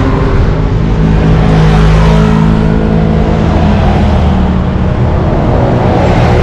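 A motor vehicle's engine running loudly and steadily, with only small changes in pitch.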